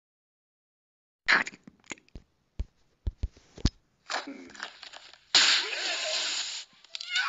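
A second of silence, then a string of sharp clicks and pops, followed by a loud hissing burst lasting just over a second.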